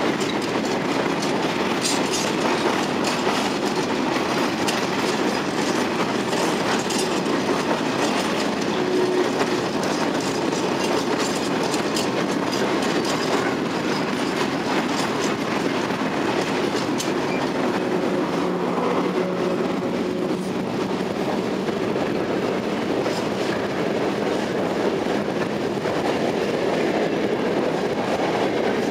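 Railway wagons rolling past on the rails: a steady wheel rumble with rapid clickety-clack over the rail joints. Near the end the passenger coaches of a train hauled by an EP07 electric locomotive pass close by.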